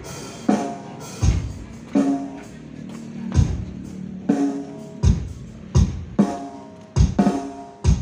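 Live single-keyboard (electone) music played loud through a PA system with custom mid-range speaker cabinets: heavy drum beats with a deep bass drum and snare hits under pitched keyboard tones.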